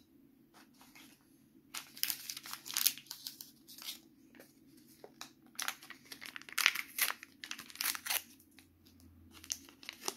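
Sealed plastic STIKEEZ toy packet crinkling and tearing as it is pulled open by hand, in irregular bursts of crackle that grow loud about two seconds in.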